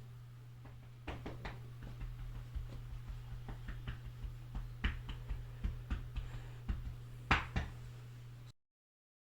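Irregular light clicks and knocks, many of them over several seconds, the loudest near the end, over a steady low hum; the sound then cuts off abruptly.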